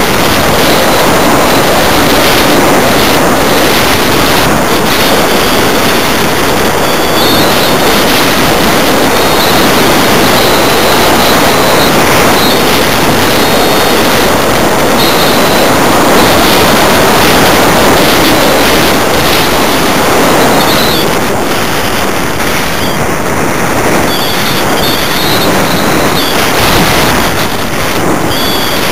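Steady rush of airflow over the microphone of a camera carried aboard a 1/6 scale BAC IV model glider in soaring flight, with faint short high-pitched whines coming and going.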